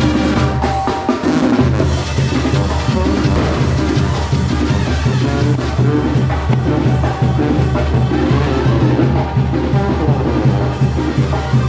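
Oaxacan brass band playing a calenda tune, with sustained low bass notes over a steady beat of bass drum and snare; the bass drops out briefly about a second in, then carries on.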